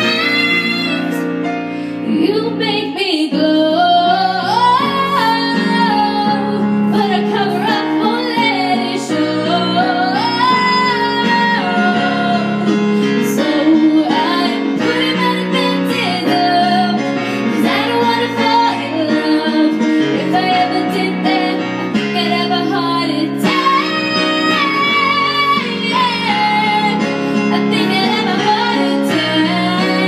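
A 13-year-old girl singing a pop song into a microphone over live instrumental accompaniment, her voice carrying a continuous melody.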